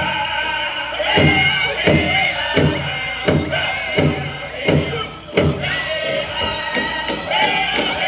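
A powwow drum group sings a chicken dance song over a large powwow drum beaten in unison. The strokes fall a little under a second apart; there is a short lull and a hard stroke about five seconds in, and the beat quickens near the end.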